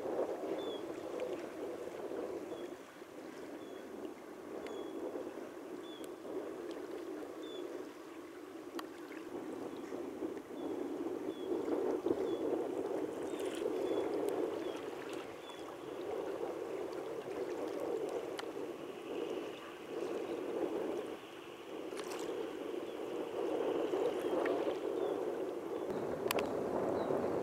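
Small choppy waves lapping and sloshing against a kayak hull, swelling and easing unevenly.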